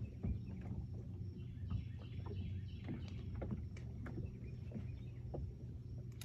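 Small waves lapping and slapping against a boat hull in scattered short strokes, over a steady low hum.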